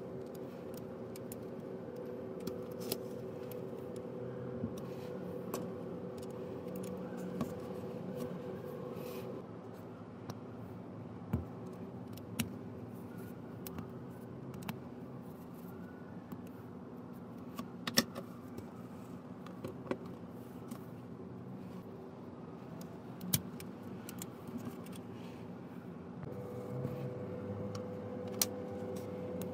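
Scattered sharp clicks of plastic LEGO Technic pins and connectors being handled and pushed together, over a steady background hum.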